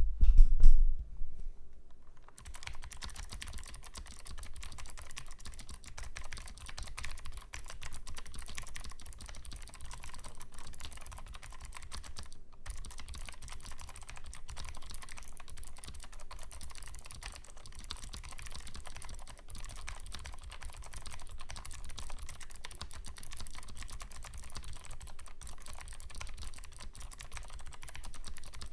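Fast, continuous typing on a custom 60% keyboard with vintage Hi-Tek Series 725 black clicky 'Space Invaders' switches and PBT keycaps on an FR4 plate: dense clicking with a brief pause around the middle. It opens with a loud low thump before the typing starts about two seconds in.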